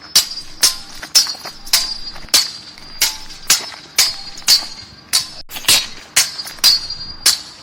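Steel swords clashing in a fight, blade striking blade about twice a second, each hit ringing high and briefly.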